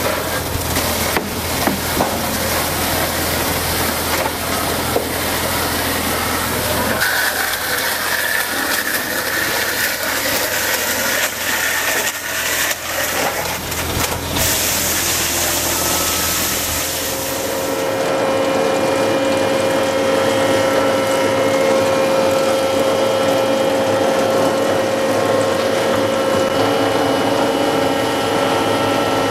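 A dowel mill running, its feed rollers and spinning cutter heads shaving raw round poles into dowels: a loud, continuous machine noise with scattered clicks and knocks. About two-thirds of the way through it changes to a steadier running sound with several held tones.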